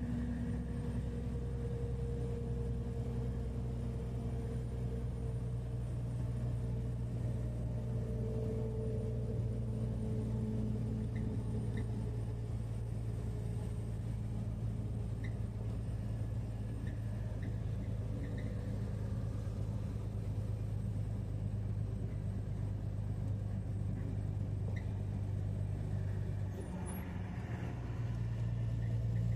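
Truck engine droning steadily, heard inside the cab while cruising on the highway, with road noise underneath. Near the end the drone dips briefly, then runs on louder.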